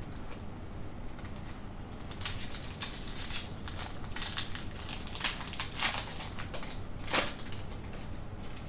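Foil Pokémon booster pack wrapper crinkling and crackling as it is torn open by hand, a string of sharp crackles, busiest from about two seconds in until near the end.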